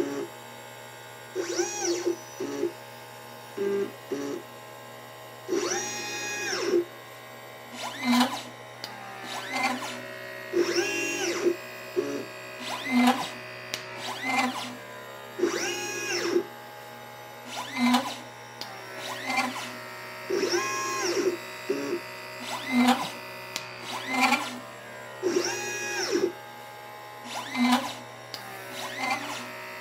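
LitePlacer pick-and-place machine's stepper motors moving the head, their whine rising and then falling in pitch with each move, about every two seconds, between short low buzzes.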